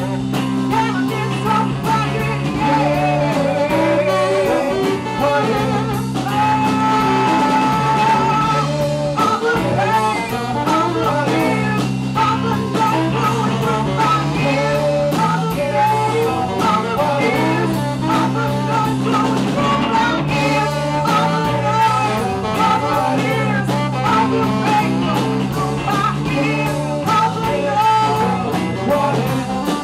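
Live blues-rock band playing: a woman singing lead over electric guitar, bass guitar, saxophone and drums, with a steady repeating bass line.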